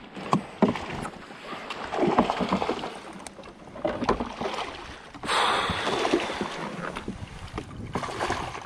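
Water splashing as a hooked bass thrashes at the surface beside a kayak and is scooped into a landing net, with a big splash about five seconds in. A few short knocks come from gear against the hull.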